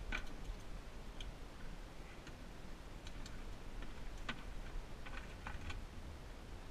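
Wet monofilament cast net being shaken out over a plastic tub: scattered light clicks and taps at irregular intervals, a few in quick runs, over a low steady rumble.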